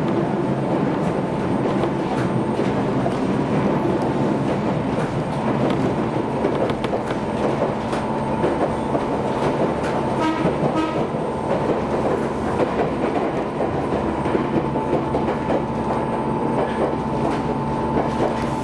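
Jōmō Electric Railway electric train running, heard from inside the carriage: steady running noise with a constant motor hum and the clickety-clack of wheels over rail joints. A brief higher ringing tone comes about ten seconds in.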